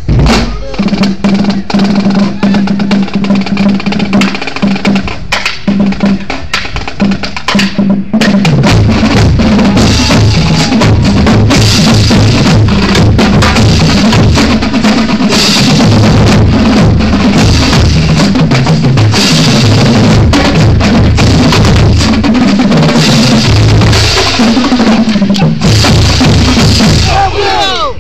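Marching drumline of snare and tenor drums playing a cadence. Spaced, separate hits for about eight seconds give way to dense, continuous loud playing that stops just before the end, where cheering begins.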